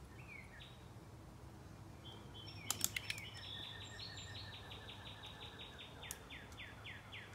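A songbird singing a long series of quick downward-slurred whistled notes, about four a second, beginning about three and a half seconds in, with a few shorter calls before it. A few sharp clicks come just before the series starts.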